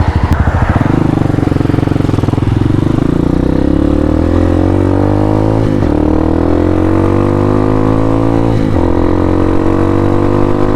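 Hawk 250 dual-sport motorcycle's single-cylinder engine pulling from low revs, then accelerating steadily with the pitch climbing, with two upshifts about six and nine seconds in, each dropping the revs before they climb again.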